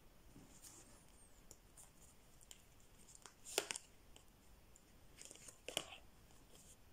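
Tarot cards being handled: faint rustles and small clicks, with two sharper card clicks about three and a half and six seconds in.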